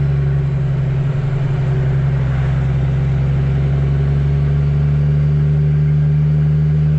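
Kenworth W900B dump truck's CAT C13 inline-six diesel running steadily on the road, a constant low drone.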